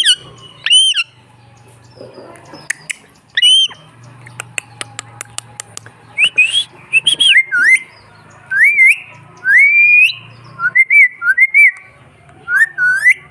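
Pet parrot calling with short whistled squawks that slide up and down in pitch. There are single calls in the first few seconds and a run of sharp clicks about four to five seconds in, then a quick string of calls through the second half.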